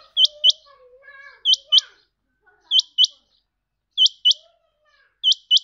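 Caged male rain quail calling: five double calls, each a pair of sharp, high notes about a quarter second apart, repeated every second and a bit.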